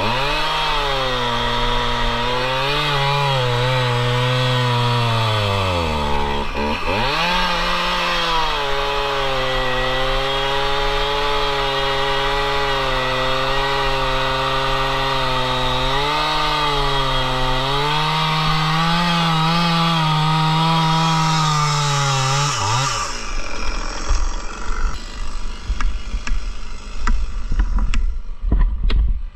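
Stihl two-stroke chainsaw running at full throttle as it cuts through an oak log, its pitch sagging briefly under load a couple of times. About 23 seconds in the engine note falls away, and irregular knocks and thumps follow.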